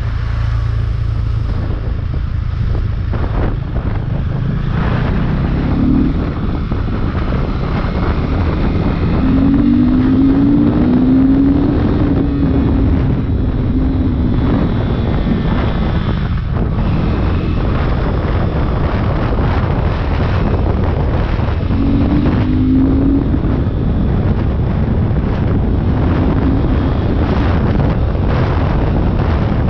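Wind rushing over the microphone of a moving motorcycle, with the bike's engine running underneath; the engine's pitch rises briefly a few times as the throttle opens.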